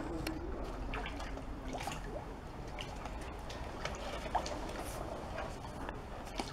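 Pond water sloshing and splashing as a mink and a muskrat struggle in it, with many small scattered splashes and drips.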